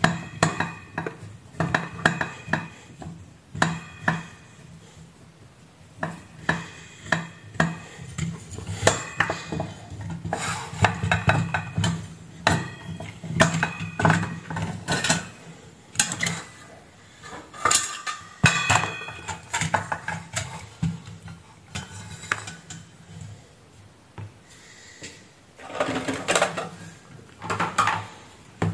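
Irregular metallic clinks, taps and knocks of a screwdriver and screws against the sheet-steel chassis and circuit board of a variable frequency drive being taken apart, with a denser metal rattle near the end as the chassis and heatsink are handled.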